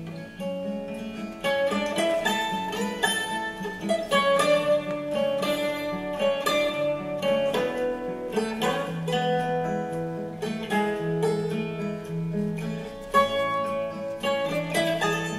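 Instrumental background music: a melody of plucked string notes, one after another.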